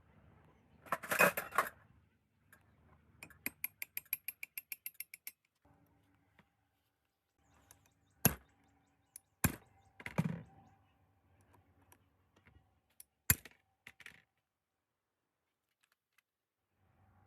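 Metal parts and hand tools being handled: a brief clatter, then a run of about fourteen quick, even clicks, then several sharp single metal knocks.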